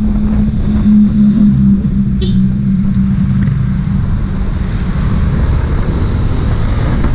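Yamaha Aerox 155 scooter ridden in slow traffic: wind rumble on the microphone over the single-cylinder engine, whose steady low hum fades out about halfway through as the scooter slows.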